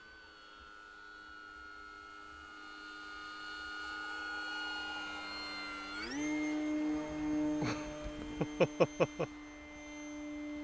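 Electric motor and propeller of an FMS Maule 1500 mm RC plane in flight, a steady whine that jumps up in pitch and gets louder about six seconds in as the plane makes a low pass. Soon after comes a quick run of five short, loud blips.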